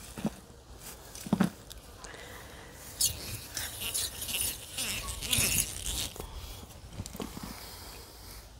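Spiral compost aerator twisted and pulled through dry compost in a plastic bin: irregular crunching, rustling and scraping of dry leaves, twigs and debris, busiest from about three to six seconds in.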